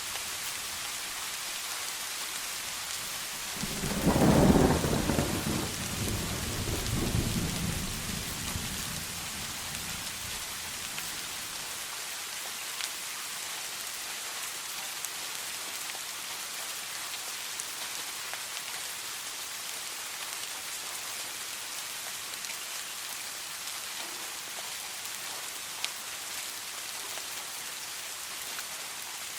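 Steady heavy rain, with a single thunderclap about four seconds in that rumbles and fades away over the next several seconds.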